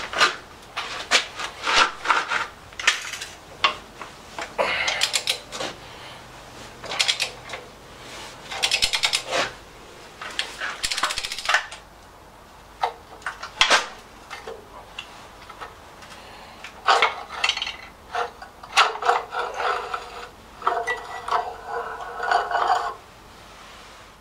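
Socket ratchet wrench clicking in quick runs as nuts are undone on the cylinder head of a Lister LR1 diesel engine. In the second half come metal-on-metal clinks and scraping, some ringing briefly, as the loosened parts are worked off.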